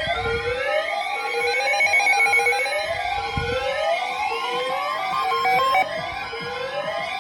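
Electronic alert siren for a tornado warning, sounding a rising whoop that repeats about once a second, with other sweeping and steady alarm tones layered over it.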